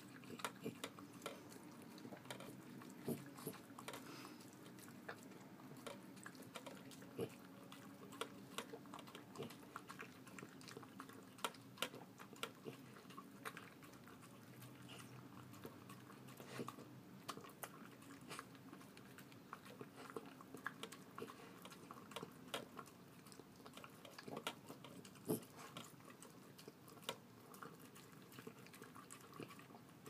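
Small yorkie-schnauzer mix dog eating soft food from a stainless steel bowl: a steady, irregular run of soft chewing clicks and wet smacks.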